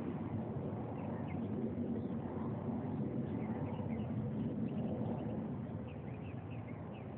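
Outdoor ambience: a steady low rumble with scattered short, faint high-pitched bird chirps over it.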